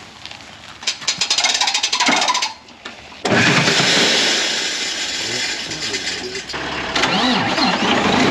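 Kenworth semi truck's diesel engine running, with a rapid run of clicks in the first couple of seconds and a sudden jump to a much louder steady engine sound about three seconds in.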